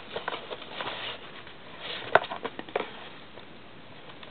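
Cardboard boxes scraping and rustling against each other as a tall inner box is drawn out of a cardboard carton, with a sharp knock about two seconds in.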